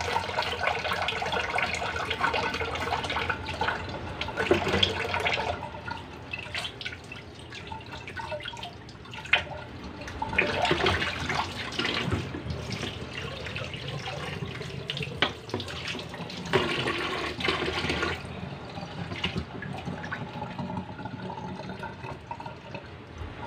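Water running from a kitchen tap into a stainless steel sink, splashing as a milkfish is rinsed under it, with repeated scraping and knocking of a cleaver scaling the fish on a cutting board.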